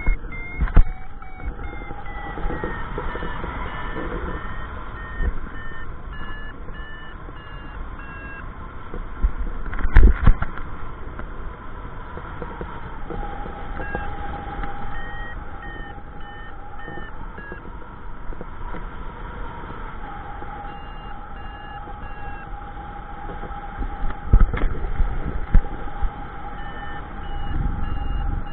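Paragliding variometer beeping: strings of short electronic tones whose pitch steps up and down, the climb signal of a glider in rising air. Wind rushes over the microphone throughout, with loud thumps of buffeting about ten seconds in and again near the end.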